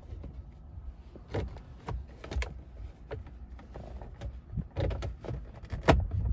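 Irregular clicks and knocks of steering column parts being handled and fitted by hand, the loudest about six seconds in.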